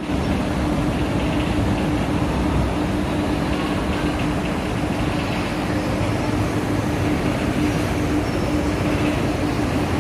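Steady mechanical drone of an industrial laundry plant's machinery, a constant hum under an even rush of noise.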